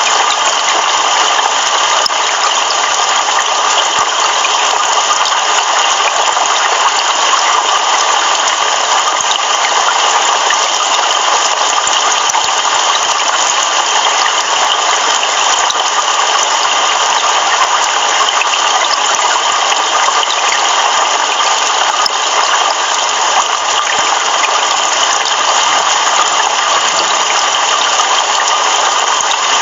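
Heavy rain falling steadily: a dense, even hiss of pouring rain with fine drop ticks through it.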